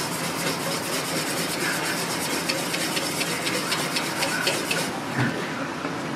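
Wire whisk beating thick batter in a stainless steel bowl: rapid rhythmic clicks and scrapes of the wires against the metal. The clicking stops a little before five seconds in and is followed by a single low thump.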